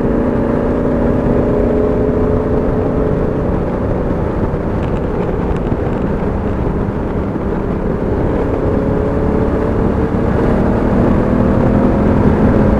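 Honda Africa Twin's 998 cc parallel-twin engine running at road speed under steady wind and road noise. The engine note drops slightly at first, then climbs steadily over the last few seconds as the revs rise.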